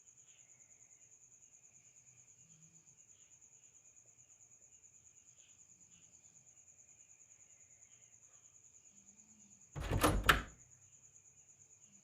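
Faint insects chirping steadily, with a thin high steady tone. About ten seconds in comes a sudden loud knock or thud, two hits close together, over in under a second.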